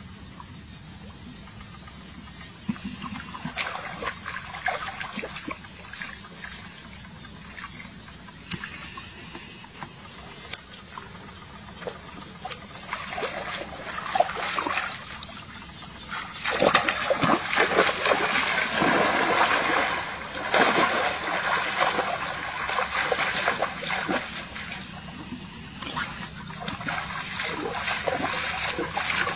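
Shallow muddy water splashing and sloshing as a woven bamboo plunge-basket fish trap and hands are worked through it: irregular splashes, louder and busier from about halfway on.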